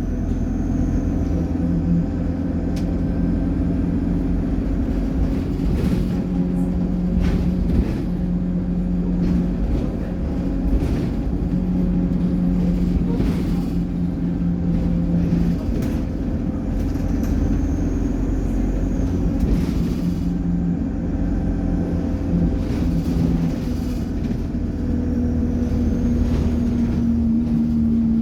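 Alexander Dennis Enviro200 bus under way: a steady low engine drone with a high turbocharger whine that rises and falls three times, near the start, about eighteen seconds in and near the end.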